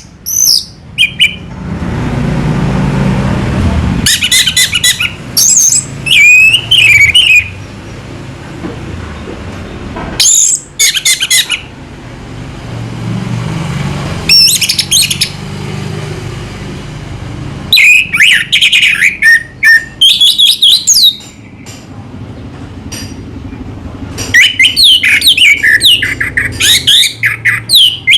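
Orange-headed thrush (anis merah) singing in bursts of rapid, high, warbling notes, each a second or three long, with pauses of a few seconds between them. A steady low hum runs underneath.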